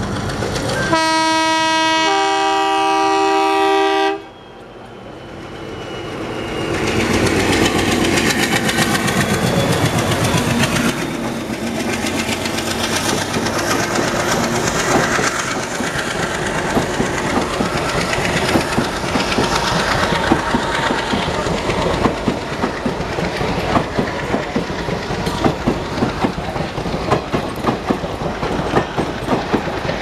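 WDM-3A ALCo diesel locomotive sounding its multi-tone horn, a blast of about three seconds that cuts off sharply. Then the locomotive and its passenger coaches pass close by, with the rhythmic clickety-clack of wheels over rail joints growing more distinct toward the end.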